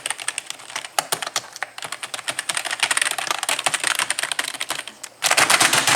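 Mechanical keyboard being typed on: a steady string of separate key clicks, then a fast dense burst of keystrokes near the end.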